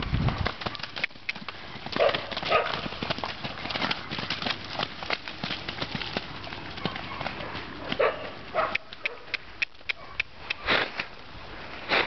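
Hoofbeats of loose horses, a Friesian Sporthorse filly among them, moving around on the dirt of a pen: a run of uneven thuds and knocks.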